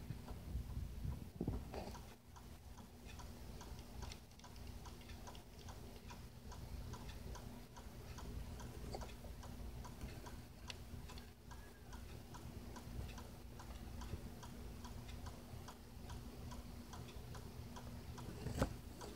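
Faint, irregular small ticks and scratches of sand and soil as a desert hairy scorpion digs into its substrate, heard through the cage floor over a steady low hum, with one louder click near the end.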